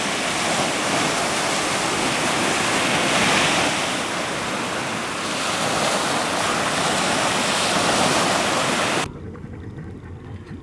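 Loud, steady rush of water with slow swells, like surf or falling water. It cuts off abruptly about nine seconds in, leaving a much quieter low rumble.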